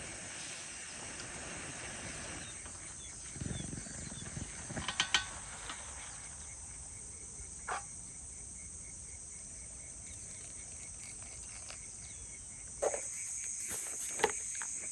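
Steady high-pitched chorus of insects such as crickets, with a fainter pulsing insect call lower down. A few short clicks and knocks come through, a soft low knock a few seconds in and sharper clicks near the end.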